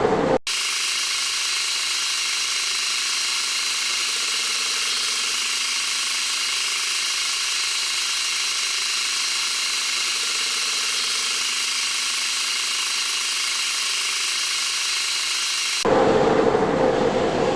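Manual metal lathe running with a steady whine made of several fixed tones. Near the end it turns louder and fuller.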